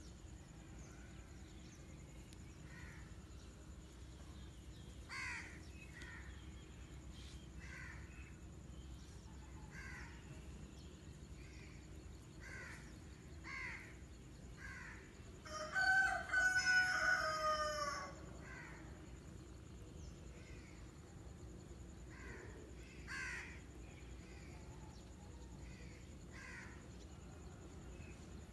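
A rooster crows once, loud and about two seconds long, a little past the middle. Short bird calls repeat about once a second in the background.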